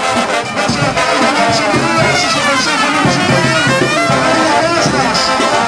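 Brass street band playing live, a sousaphone carrying the bass under the higher brass.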